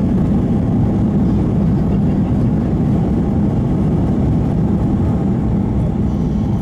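Steady low rumble of an airliner's cabin as the jet rolls on the ground after landing, its engines and wheels running with no sudden change.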